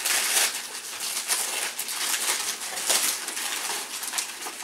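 Gift wrapping paper being torn and crumpled by hand: an irregular run of ripping and crinkling.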